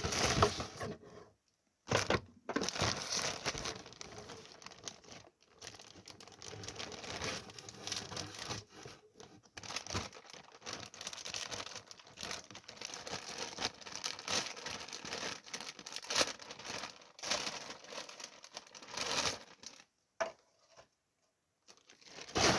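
Packaging around plush toys being torn open and crinkled by hand: irregular rustling and tearing with a few short pauses, the longest near the end.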